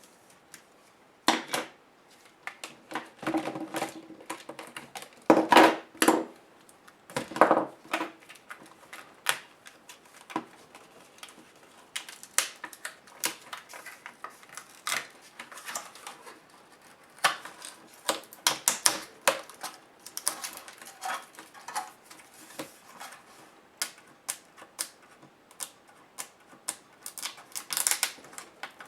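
Hand disassembly of an HP DV4 laptop: irregular clicks, taps and short scrapes of small plastic and metal parts being handled and pried apart, with a louder cluster of knocks and scraping about five to eight seconds in.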